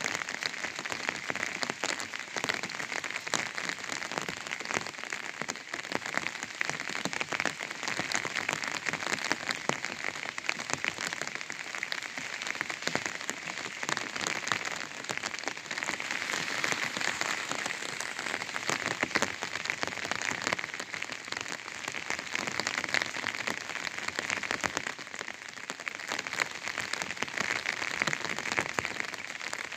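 Rain falling on an umbrella: a steady, dense patter of many drops on the canopy, even throughout.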